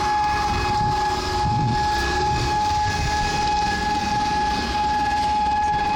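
Siren sounding one steady, unwavering high tone over low background noise.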